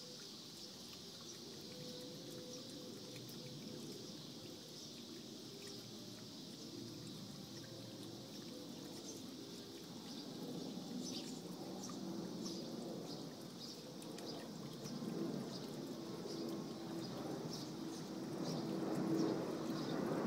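Small stone garden bubbler fountain trickling and splashing steadily, with faint high chirps repeating throughout. A low rumble grows louder over the last several seconds.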